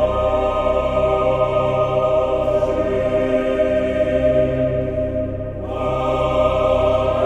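Soundtrack music of choral voices holding sustained chords over a low drone, thinning and dipping briefly about five seconds in before swelling back.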